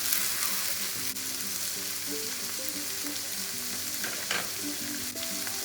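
Mixed vegetables sizzling steadily in hot oil in a wok on high flame as they are stir-fried, with soft background music underneath.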